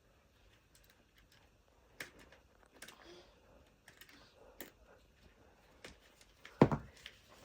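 Scattered light clicks and taps of a screwdriver working the screws of a baby rocker, with one louder knock near the end.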